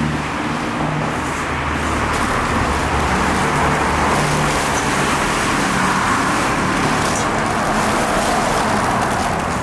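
Steady road traffic noise, with a motor vehicle's low engine hum that fades out about halfway through.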